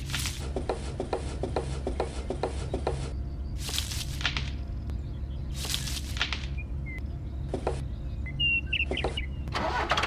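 A steady low motor-like hum, with light ticks at about four a second during the first three seconds and a few brief rustles later on.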